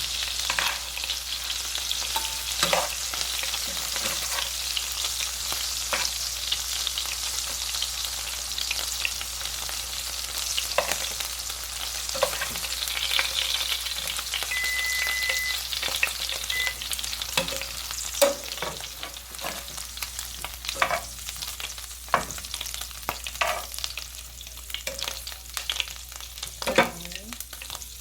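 Chicken cubes sizzling in butter and olive oil in a pot, with sharp clicks and scrapes of a utensil against the pot as the seared pieces are lifted out. The sizzle grows lighter in the last third, where the clicks stand out more.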